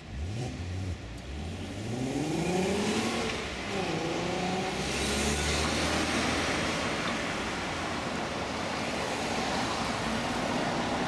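A car accelerates past, its engine climbing in pitch, dropping briefly a little under four seconds in as it changes gear, then climbing again. A steady rolling noise from the car's tyres and a Basel tram passing close follows to the end.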